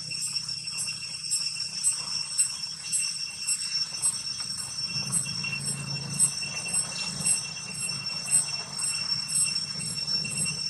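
Insects buzzing in a steady high-pitched chorus, with a pulse repeating about twice a second, over a low hum.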